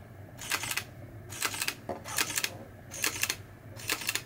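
Sony A7R mirrorless camera's mechanical shutter fired five times, about one shot every 0.8 seconds, each shot a sharp double clack.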